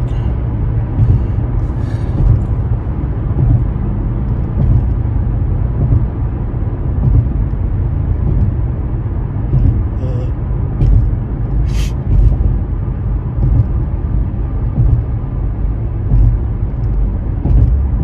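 Steady low rumble inside a vehicle cabin. About two-thirds through there is one short, sharp rush of air: a sneeze stifled into a handkerchief.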